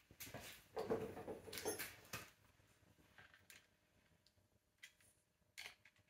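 Handling noise from the smart lock's metal handle plate and a screwdriver: a few short rustling, clattering bursts in the first two seconds, then scattered faint clicks.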